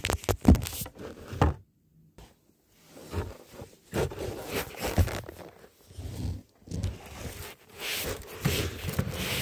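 Handling noise: fabric and soft toys rustling and scraping against a phone's microphone, with irregular soft knocks and bumps. It drops out briefly about two seconds in.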